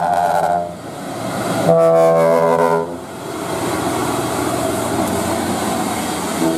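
Trumpet air horn on a Mitsubishi Fuso dump truck blown in blasts: one ending about half a second in, a second lasting about a second from roughly two seconds in, and a short toot at the very end. Between them, the steady noise of heavy trucks' engines and tyres on the road.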